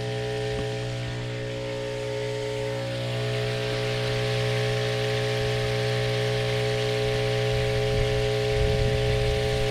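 Small live-bait tank pump running, a steady mechanical hum that holds one unchanging pitch, keeping the live bait oxygenated. A rushing hiss builds about three seconds in.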